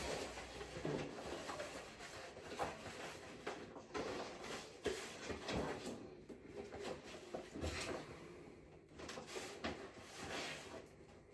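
Large sheets of decorative wall stickers rustling and crackling as they are handled and unfolded, with the stickers being pressed onto the wall. The sound is faint and comes in irregular short crackles.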